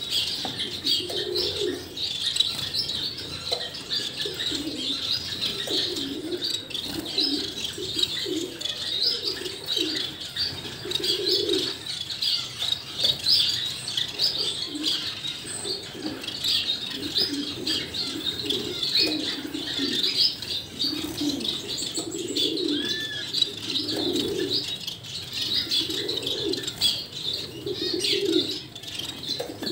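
Finch nestlings' high, rapid begging chirps, going on without a break during hand-feeding. Low calls repeat about once a second underneath.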